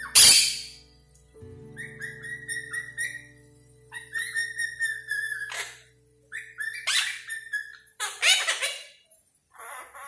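Quaker parrots chirping in quick repeated short notes, broken by loud harsh squawks: the loudest right at the start, more about seven and eight seconds in.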